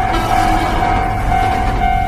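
Railroad crossing warning signal ringing its repeating electronic tone, about two rings a second, over the steady rumble of a passing train.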